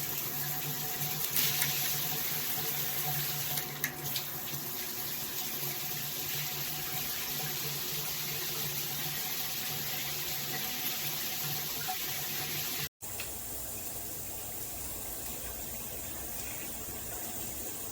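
Water spraying steadily from a MakeFit filtered handheld shower head. The sound cuts out for an instant about thirteen seconds in, then resumes a little quieter.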